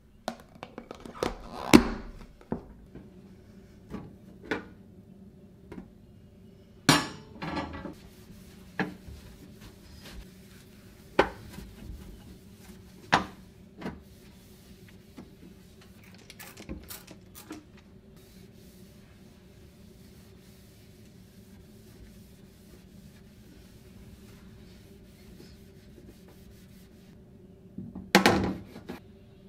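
Kitchen handling sounds: a plastic lid pressed and clicked onto a glass food container, then a series of sharp knocks and clicks, then soft rubbing as a cloth wipes a stainless-steel gas hob. Near the end a metal pan support clatters as it is set back onto the hob. A low steady hum runs underneath.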